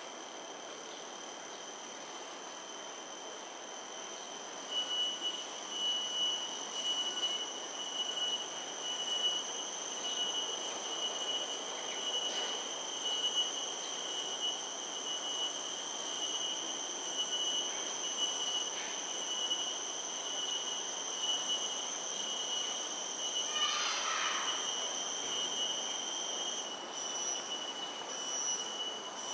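High-pitched insect drone: steady shrill tones with a fast pulsing buzz, breaking into short rhythmic beats near the end. A brief chirp cuts in about three-quarters of the way through.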